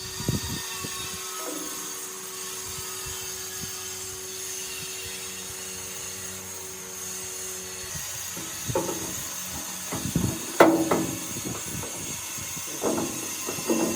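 Workshop tool work: a steady machine hum and high whine, then from about two-thirds of the way in a run of irregular scraping strokes that ring, the loudest near the end.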